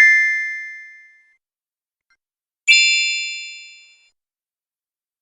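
Two short magic chime sound effects, each a bright struck ding with a shimmer of high tones that fades away over about a second and a half; the second comes about two and a half seconds after the first.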